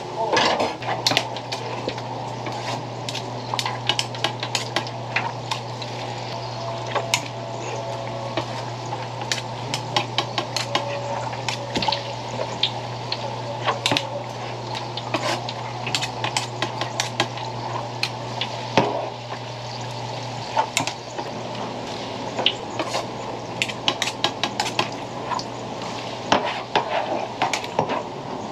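Metal knife tapping and scraping on a plastic cutting board in quick, irregular clicks as fish cake paste is cut into portions, over the steady sizzle of hot frying oil. A low steady hum drops away about two-thirds of the way through.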